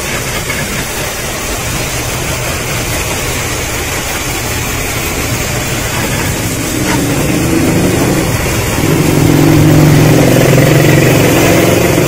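Pressure washer running, its high-pressure water jet hissing as it sprays a motorcycle, over the steady hum of the washer's motor and pump, which grows louder about nine seconds in.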